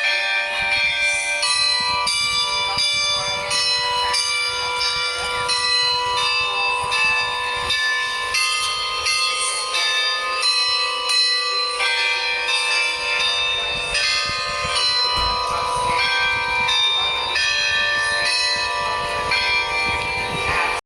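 Carillon bells playing a tune, a new bell struck about every half second, each note ringing on under the next.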